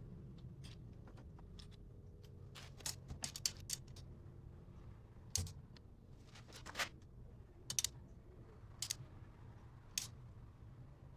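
Irregular light clicks and taps of small metal parts and hand tools being handled, some in quick clusters, over a faint steady low hum.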